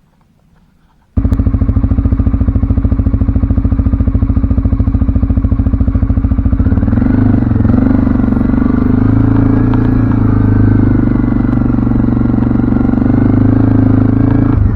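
CFMoto ATV engine running: it comes in suddenly about a second in, and about halfway through its note rises and fills out as if under more throttle, then holds steady.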